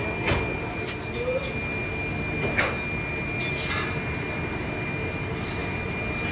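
Steady din of foundry machinery with a constant high whine, and a few short strikes as moulding sand is hand-rammed into an iron mould flask with a steel rammer bar.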